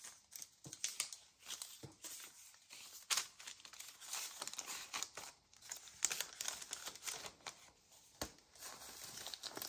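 Paper and fabric ephemera scraps rustling and crinkling as hands shuffle them and slide them into the pockets of a handmade storage book, faint and irregular, with a few sharper clicks.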